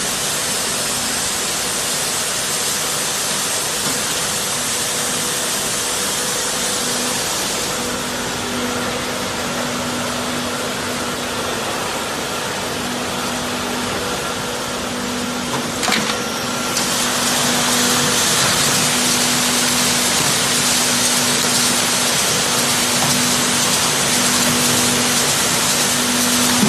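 Hatchery basket washing machine running: a steady hiss of water spray over a pump motor's hum. There is a brief knock about two-thirds of the way through, after which the spray hiss gets louder.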